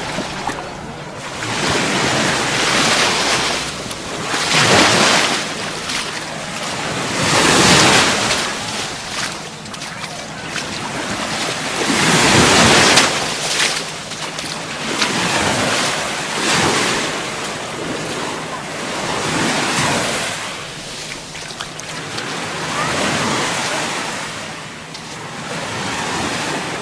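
Gulf of Mexico surf breaking on the beach, the wash swelling and fading every three to four seconds, with wind rumbling on the microphone.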